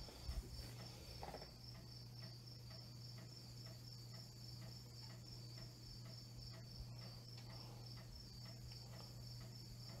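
Early-1960s Hoover table fan coasting down after being switched off: faint, evenly spaced ticking as the blade assembly slows toward a stop. A steady high pulsing trill and a low hum run underneath.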